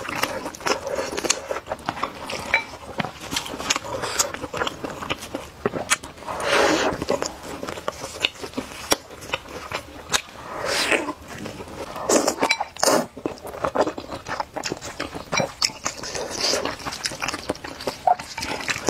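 Close-miked eating sounds: steady small wet clicks and smacks of chewing, with a few longer slurps of sticky rice noodles and crisp bites into fried food.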